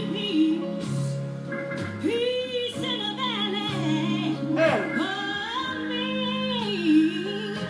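Gospel music playing on a radio: a voice sings long, wavering notes over held instrumental chords.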